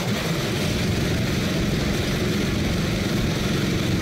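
A small engine running steadily, giving a continuous low drone at an even level.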